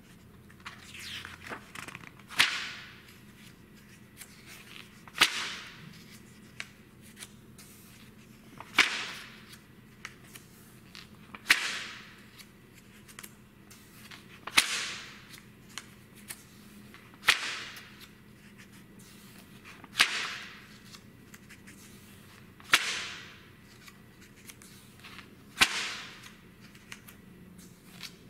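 Pages of a glossy print magazine being turned by hand, one about every three seconds. Each turn is a short swish and slap of paper.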